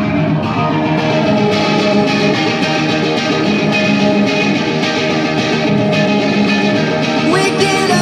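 Rock band playing live: electric guitars, bass guitar and drums, sustained and steady, with a chord change near the end.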